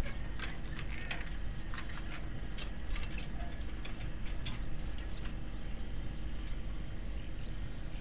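Metal harness and hitch hardware on a horse-drawn hay wagon jingling and clinking as the team pulls past. The clinks come thickly at first and thin out after about five seconds, over a steady low rumble.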